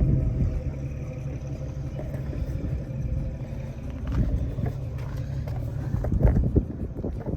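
A truck engine idling with a low, steady rumble. A few short knocks and rustles from handling come near the end.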